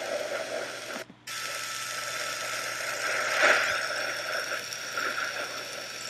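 Induction magnetometer data for 11 June 2012, sped up and played back as sound: a steady noisy hiss that drops out briefly about a second in and swells around three and a half seconds in. It is the day's unusual geomagnetic resonance, whose cause is unknown.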